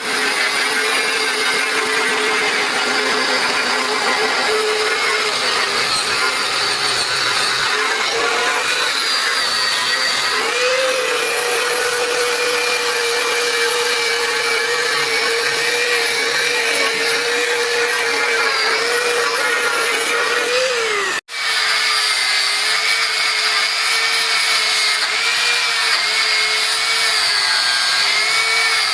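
Electric power tool running steadily on metal with a high whine, its pitch wavering slightly. It cuts out for an instant about 21 seconds in.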